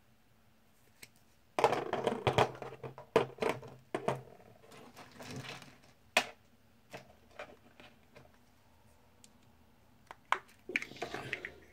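Plastic remote key shells handled and pressed together by hand: a flurry of clicks, taps and rattles on the table, then scattered single clicks and a second short cluster near the end.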